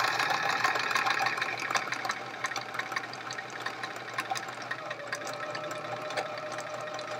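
Electric sewing machine running steadily, its needle stitching fast and evenly through a seam, slightly quieter after about two seconds.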